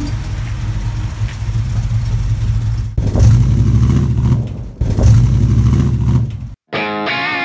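1953 GMC panel truck's engine running with a steady low drone, revved up twice, about three and five seconds in, then cut off abruptly. Electric guitar music starts just after.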